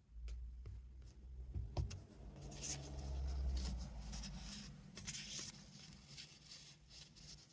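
Handling noises of stamping at a craft table: scattered light taps and clicks, brief rubbing, and low bumps against the work surface.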